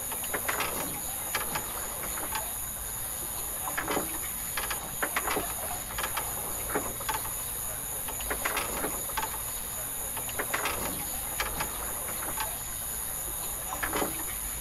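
Outdoor ambience: a steady high-pitched insect drone, with scattered short clicks and chirps.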